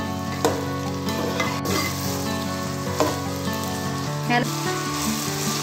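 Soaked basmati rice sizzling as it is stir-fried in hot oil and ghee with whole spices, being roasted before water is added. A metal spatula scrapes through it and knocks against the pot a few times.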